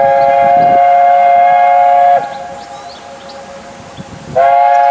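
Steam locomotive whistle giving a long blast of several notes at once, which stops about two seconds in with a slight drop in pitch; after a short gap a second blast starts near the end.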